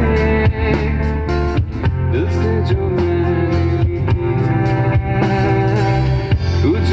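A live band playing through large PA loudspeakers: electric guitars, bass and drum kit. A held, bending melody line sits over steady bass notes and regular drum hits.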